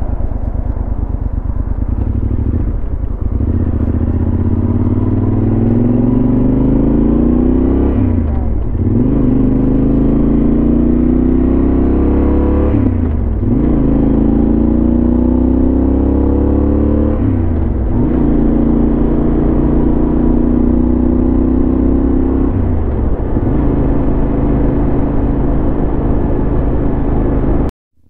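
Yamaha XT1200Z Super Ténéré's parallel-twin engine breathing through a Leovince SBK aftermarket exhaust, pulling up through the gears: the note climbs, drops back at each of several upshifts, then runs at a steadier pitch. The sound cuts out briefly near the end.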